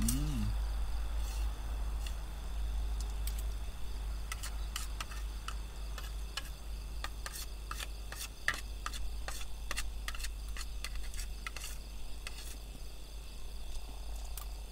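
A series of light, irregular clicks and clinks of eating utensils against a plate while eating fried rice, thickest in the middle of the stretch, over a steady high insect chorus.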